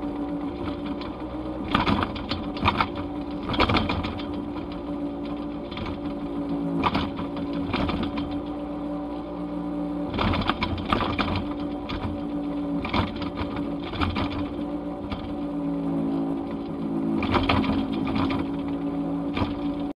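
Small boat's outboard motor running steadily at speed, with the hull slapping hard through waves at irregular intervals and the rush of spray.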